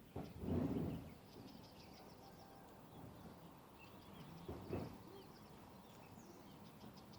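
Small birds chirping faintly and repeatedly, with a short low rumble about half a second in and another briefly near five seconds.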